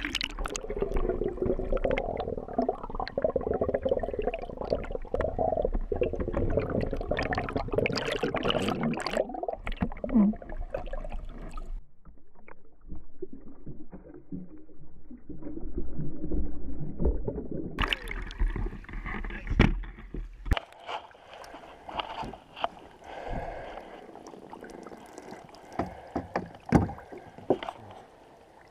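Lake water sloshing and gurgling against a camera held at the surface while a small bass is netted, muffled for several seconds in the middle as the microphone goes under. Toward the end come scattered light clicks and knocks as the fish is handled in a mesh landing net.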